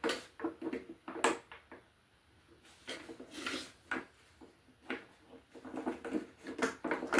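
Scattered light clicks and knocks of small metal tuner hardware and tools being handled against a wooden dulcimer headstock, about one every second or so.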